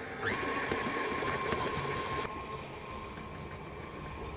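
KitchenAid Artisan stand mixer's motor spinning up just after the start, then running with a steady whine as its flat beater creams butter and sugar in the steel bowl. The sound dulls abruptly a little after halfway.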